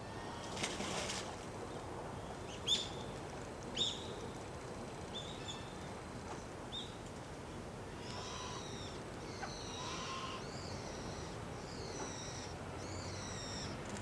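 Wild birds calling: two sharp, high calls a few seconds in, then a run of short, wavering high calls about once a second through the second half, over a steady low background hiss. A brief rush of noise comes just under a second in.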